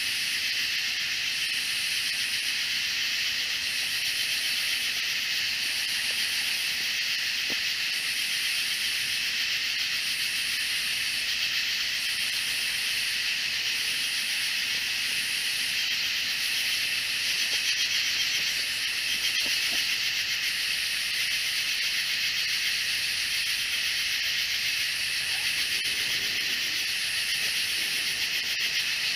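Night insect chorus of katydids and cicadas: a steady, high buzzing drone with a higher rasping pulse repeating about every one and a half to two seconds.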